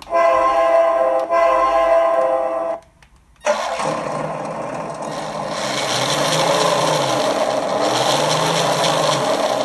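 Electronic train-horn sound from an RC truck's sound module played through its small speaker: two held blasts, the second after a short break about a second in. After a brief pause the module's simulated V8 engine sound comes in about three and a half seconds in and runs on, rising in revs about halfway through.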